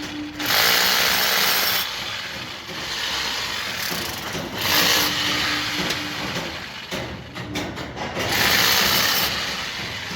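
Construction-site power-tool and machinery noise, with three louder rushing bursts about four seconds apart over a steady faint hum.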